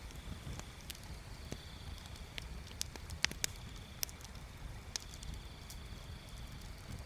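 Wood bonfire crackling: irregular sharp pops and snaps over a low steady rumble.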